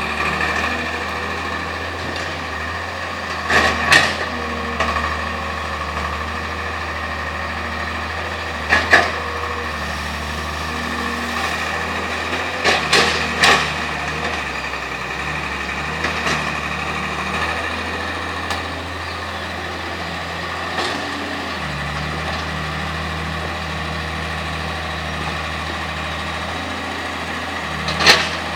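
Excavator engine running steadily, with a few sharp knocks about four seconds in, around nine and thirteen seconds in, and again near the end.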